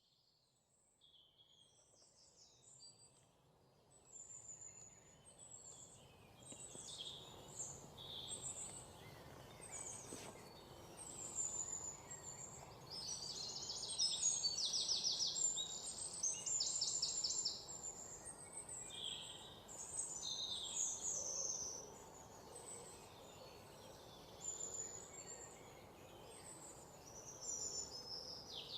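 Forest ambience: several birds chirping and calling in short high phrases over a soft steady hiss, with fast pulsed trills near the middle. The sound fades in over the first few seconds.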